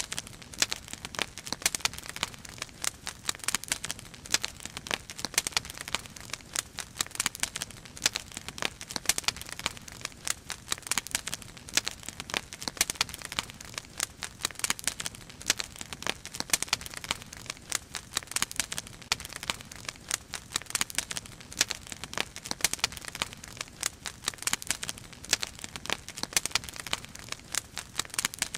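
Wood fire burning in a fire basket, crackling with dense, irregular pops and snaps.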